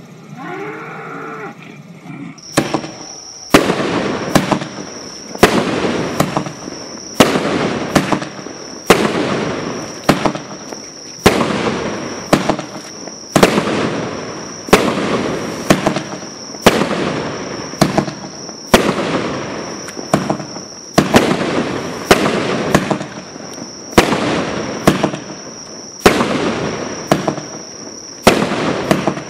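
Mad Ox OX293 Diamond Mine 200-gram firework cake firing shot after shot, about one a second from about two seconds in. Each shot is a sharp bang followed by a noisy tail that fades before the next.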